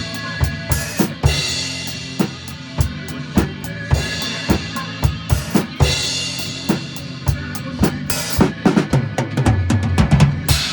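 A drum kit played in a steady beat of bass drum and snare, with a crash cymbal every two seconds or so. The hits grow busier near the end, over recorded accompaniment.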